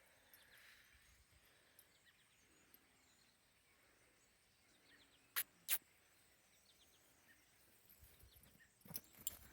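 Near-silent outdoor background with faint high chirps. Two sharp clicks come about halfway through and a few more near the end.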